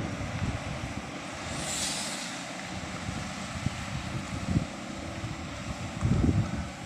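Heavy-equipment engine running, with wind buffeting the microphone; a brief hiss swells and fades about two seconds in.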